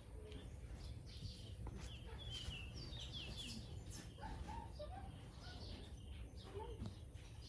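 Small birds chirping: a quick run of short, falling high chirps about two to three and a half seconds in, and a few lower calls after, over a steady low rumble.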